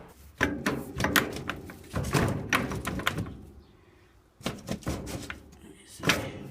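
Irregular knocks, thuds and rattles as a sash window and a window air conditioner are worked to free the stuck unit, with a short pause near the middle.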